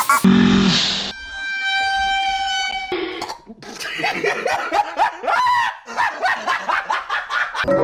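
Edited-in cartoon sound effects: a steady horn-like blare held for about two seconds, then a quick run of high squeaky yelps that bend up and down in pitch.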